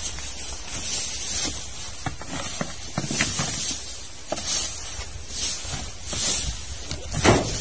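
A cobra hisses in sharp breaths roughly once a second, the loudest near the end: the defensive hiss of a cornered snake. Dry leaf litter rustles and scrapes as a snake hook probes through it.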